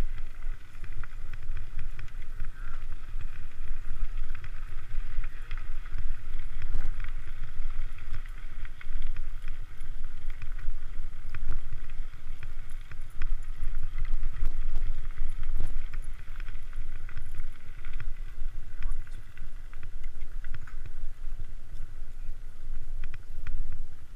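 Mountain bike riding over a dirt trail strewn with leaves: a steady low wind rumble on the microphone, with crunching tyre noise and frequent rattling clicks from the bike.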